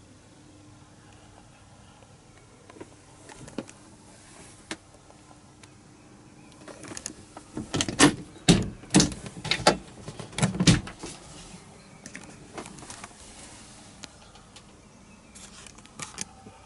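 Sharp knocks and clicks of the camper van's interior doors and wooden cabinetry being handled, about eight in quick succession around the middle, over a faint steady hum.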